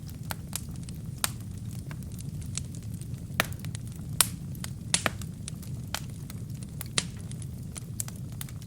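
Wood fire with burning kindling in a fireplace: irregular sharp crackles and pops over a steady low rush of flame. The loudest snap comes about four seconds in.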